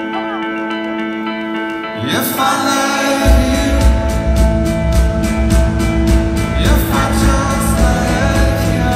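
Live rock band heard through a phone in a large arena with singing. The first two seconds are quiet held chords. The sound swells about two seconds in, and around three seconds the full band comes in with drums and bass on a steady beat.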